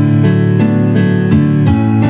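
Instrumental background music with plucked-string notes over a steady chord bed.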